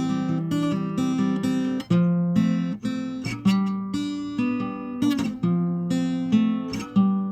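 Acoustic guitar music: picked notes and strummed chords that ring on between attacks.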